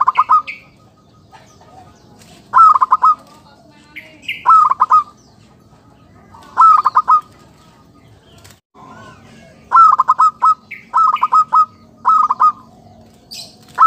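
Zebra dove (perkutut) decoy bird cooing: about eight short phrases of rapid staccato notes, each well under a second, repeated every one to three seconds, with a quick run of them near the end. A few brief higher chirps fall between the phrases.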